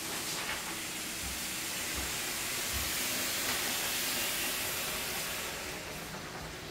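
Water running into a bath, a steady hiss that fades away about six seconds in, with a few soft low thumps.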